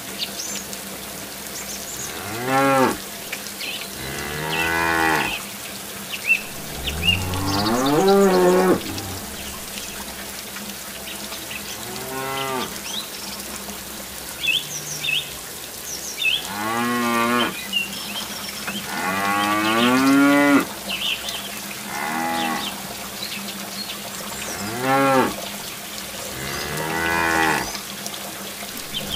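Cow mooing about nine times, each call under a second to a second and a half long, a few seconds apart. A faint trickle of the toy pool's little water-pump fountain runs underneath.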